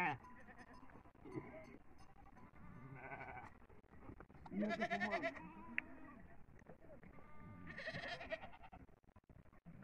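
Goat kids bleating: a few separate quavering calls, the loudest about halfway through.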